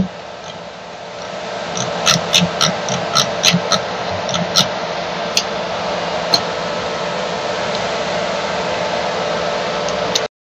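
A 3D printer's Z-axis stepper motor gives a steady whirring hum as it lowers the printhead, slowly growing louder. Over the first part come a dozen or so short clicks from its rotary control knob being turned. The sound cuts off suddenly near the end.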